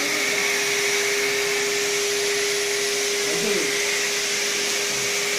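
Euroclean WD X2 wet-and-dry vacuum cleaner running steadily: an even motor rush with a constant hum tone.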